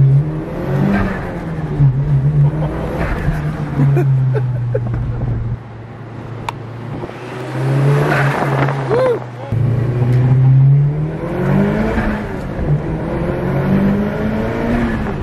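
Car engine under load while driving: it pulls hard, goes quieter for a few seconds in the middle, then pulls strongly again.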